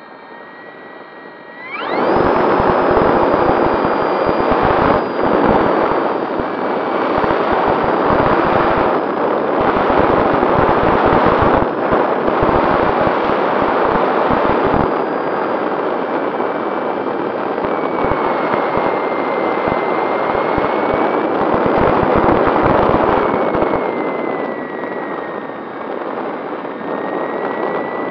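A scratch-built RC model plane's motor and propeller, heard from a camera on board. The motor whine rises as it spins up, then at about two seconds it goes to full power with a loud rush of propeller wash and wind on the microphone, the whine's pitch wavering as the plane flies.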